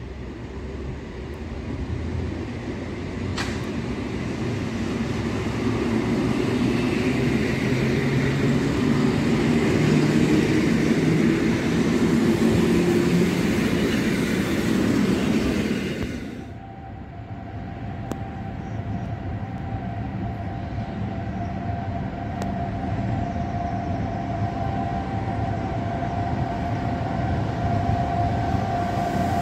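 A red electric multiple unit runs past along the platform, its running noise growing louder over about fifteen seconds. The sound then changes abruptly to an approaching E6ACTa electric freight locomotive, a quieter running noise with a steady high whine.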